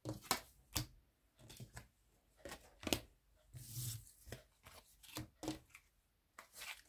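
Tarot cards being shuffled and handled: a string of sharp, irregular clicks and taps with a few short swishes of cards sliding against each other.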